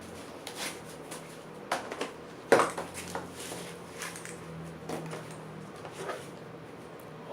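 Scattered light clicks and rustles of a mechanical keyboard and its packaging being handled during unboxing, with one louder knock about two and a half seconds in.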